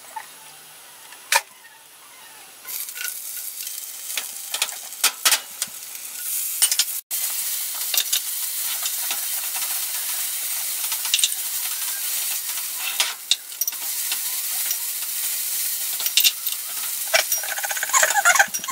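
Oil sizzling in a frying pan, a hiss that builds from about three seconds in and settles into a steady, louder sizzle. Sharp clicks and light clinks of utensils on small porcelain dishes as a sauce is stirred sound over it, with a few ringing clinks near the end.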